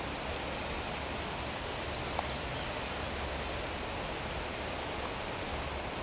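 Steady hiss of outdoor background noise with a low rumble underneath, and one faint click about two seconds in.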